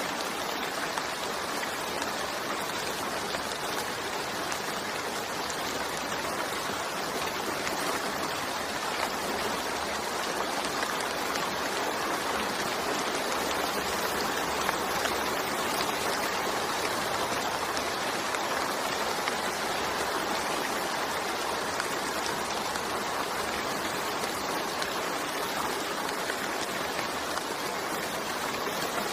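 Steady rain falling, a dense, even hiss with no single drops or gusts standing out.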